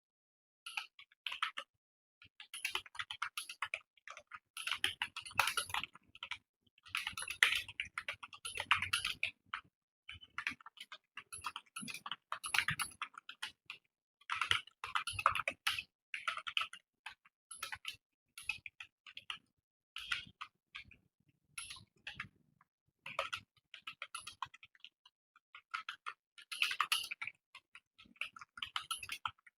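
Fast typing on a computer keyboard: quick runs of key clicks broken by short pauses.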